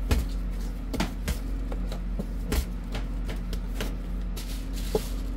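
Bread dough being divided with a plastic scraper on a steel bench and dropped in lumps onto a digital scale: a handful of separate knocks and scrapes over a steady low machine hum.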